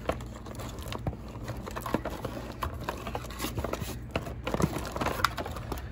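Irregular light clicks, taps and rustling of boxes and plastic parts being handled, over a steady low hum.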